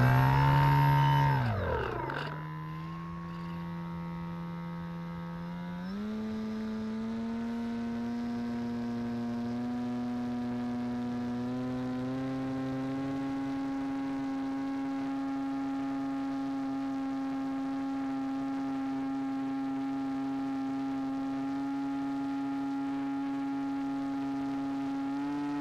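Motor and propeller of a radio-controlled model airboat running as a steady whine. The pitch rises and falls sharply in the first two seconds, then holds and steps up a little higher a few times, with a last jump near the end.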